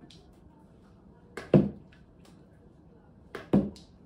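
Sharp knocks in pairs, the two hits about a fifth of a second apart, coming twice, about two seconds apart, each with a short ring after it.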